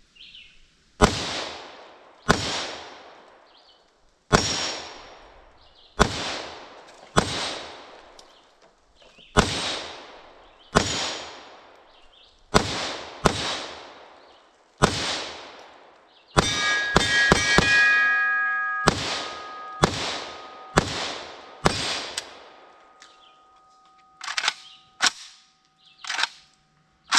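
KUSA KR103 AK-pattern rifle firing 7.62x39 rounds, a shot every second or so, with a quick string of several shots about two-thirds of the way through. Fainter shots follow near the end, and a faint steady ringing tone lingers after the quick string.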